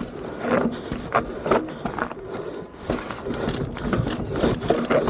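Mountain bike rattling and clattering as it rides fast down a rocky, stone-paved trail, with frequent irregular knocks from the bike jolting over the stones.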